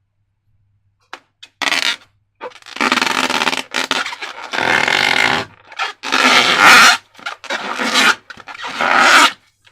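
Rubber balloons and slime being handled: irregular bursts of rubbery scraping and squishing, some with a faint squeaky tone, separated by short pauses.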